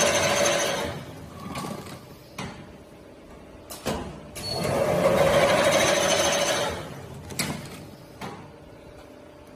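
Paper tube cutting machine running through its cycle: a loud cutting run that fades about a second in, a quieter spell with a couple of clicks, then another loud cutting run of about two and a half seconds from roughly four and a half seconds in, followed by a click.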